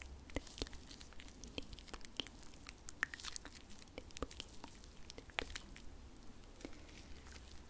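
Close-miked ASMR hand sounds: skin rubbing and pressing, giving sharp, irregular sticky clicks and crackles.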